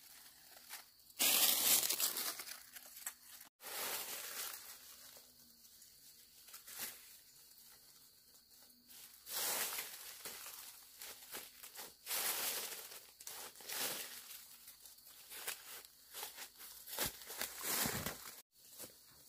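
Bursts of rustling and crackling, like dry material being crumpled or pushed through, separated by quieter stretches.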